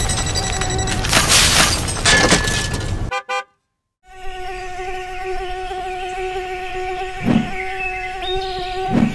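Quadcopter drone's propellers buzzing steadily in hover. A rough, gusty noise masks the buzz at first, then comes a second-long break of silence. After it the buzz is clear, with two short low thumps near the end.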